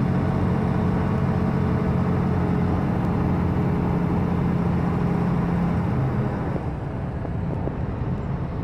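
Semi truck's diesel engine droning steadily at highway speed, with road and wind noise, heard from inside the cab. The sound eases a little about six and a half seconds in.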